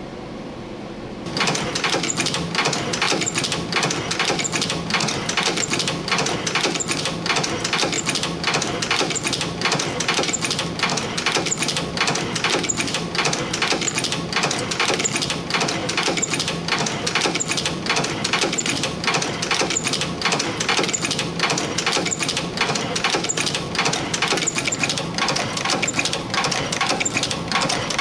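CNC extension spring making machine, an EF-210, starting up about a second in and then running continuously: a fast, dense mechanical clatter of clicks as it coils 0.5 mm wire into springs and bends German-style hooks on their ends. Before it starts, only a low steady hum.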